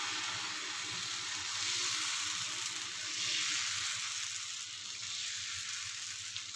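Rice-flour and urad dal batter sizzling as it is poured onto a hot oiled flat pan and spread thin with a ladle: a steady hiss.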